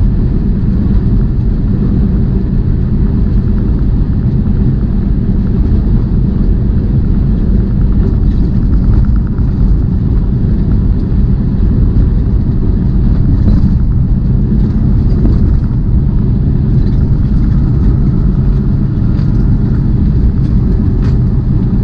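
Steady engine and road noise of a semi-truck heard from inside the cab while driving, a constant low rumble with no changes.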